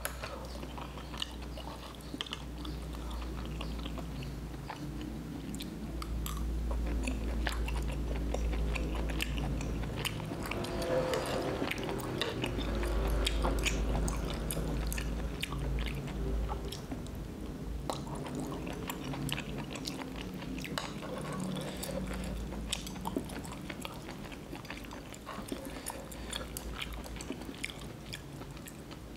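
Close-up eating sounds of a person chewing spicy rabokki (ramyeon noodles, tteokbokki rice cakes and melted mozzarella), with many small wet mouth clicks, over a low steady hum.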